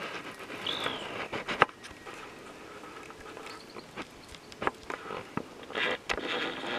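Faint rustling of dry brush and twigs, with scattered small snaps and clicks and a short chirp about a second in.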